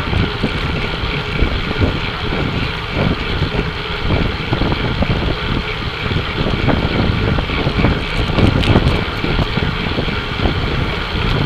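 Wind buffeting the microphone of a bike-mounted action camera on a road bike riding in a tight peloton, with the rolling noise of the bikes underneath. The buffeting is steady and uneven.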